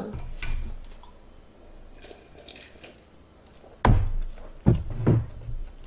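A few dull, low thuds with sharp clicks, close to the microphone: one right at the start, then a louder cluster of three about four to five seconds in, with faint rustling between.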